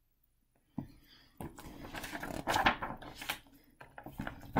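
Pages of a large picture book being handled and turned: a couple of soft knocks, then about two seconds of paper rustling and flapping, and a few more light knocks near the end.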